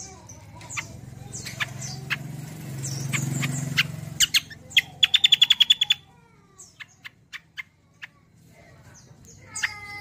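Kecial kombo songbird singing: a run of sharp chirps and whistled notes, with a fast trill of about ten loud repeated notes around five seconds in, then a few scattered single chirps.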